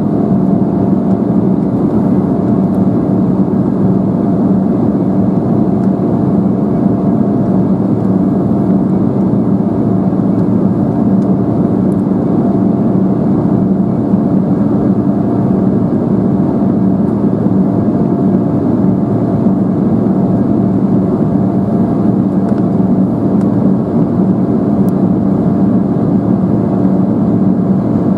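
Embraer 175 cabin noise in flight, heard from a window seat: the steady drone of the GE CF34 turbofans and airflow past the fuselage, with a few steady hum tones over it and no change in level.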